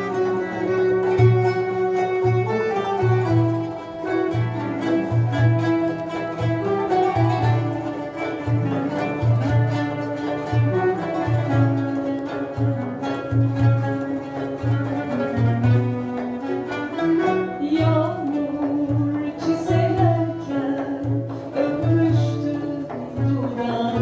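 Instrumental music, strings and guitar playing a melody over a steady repeating bass beat.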